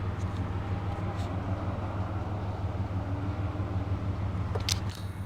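A steady low hum, with a couple of faint clicks about one second in and near the end.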